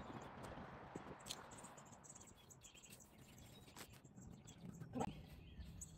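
Faint rustling and small knocks of gloved hands working garden soil while planting, with a louder knock about five seconds in. Faint bird chirps.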